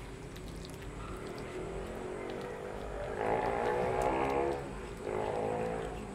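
A motor vehicle engine passing by, swelling to its loudest a little past the middle and then fading.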